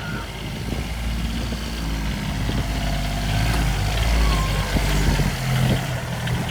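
A motor vehicle's engine running close by, a steady low hum that grows louder for about four seconds and then eases off a little.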